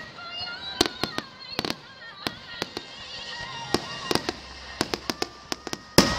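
Aerial fireworks shells bursting overhead: a rapid, irregular string of sharp bangs and reports, with a louder, deeper blast at the very end.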